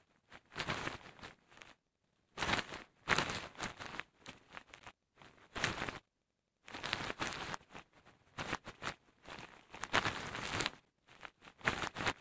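Synthesized clothing sound: cloth rustling and crumpling in bursts that follow a figure's boxing movements, pieced together from short snippets of recorded real cloth. There are dead-quiet gaps between the bursts.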